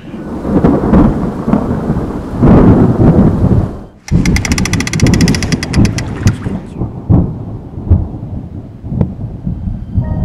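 Thunder rumbling in a storm, with rain. Just after a short break about four seconds in, a fast, even ticking runs for a couple of seconds over the rumble.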